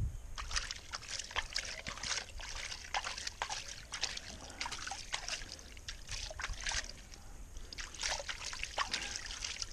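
Water sloshing and trickling in many quick, irregular splashes as the rubber catch mat from a highbanker's tray is rinsed out to recover the gold it caught.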